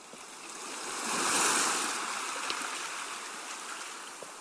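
Seawash: a sea wave washing up the shore, swelling to a peak about a second and a half in, then hissing away slowly as it draws back.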